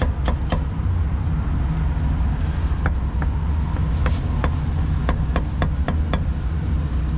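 Heavy cleaver chopping roast pork on a wooden chopping board: two chops near the start, then a run of about ten quick chops in the second half. Under it runs a steady low rumble of street traffic.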